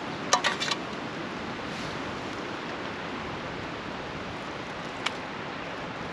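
Steady hiss of falling rain, with a quick cluster of sharp clicks about half a second in and one more click near the end.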